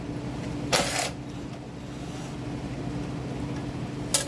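Hand work taking the two 10 mm nuts off a small mower engine: a short rasp about a second in and a sharp click near the end, over a steady hum.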